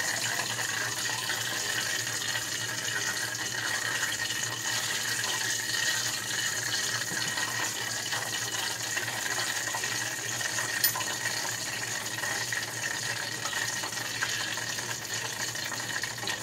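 Hot cooking oil in a pan sizzling and spitting steadily with scattered small crackles, because water got into the oil.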